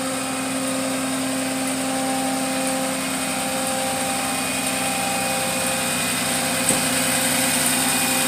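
Rollback tow truck's engine idling steadily close by.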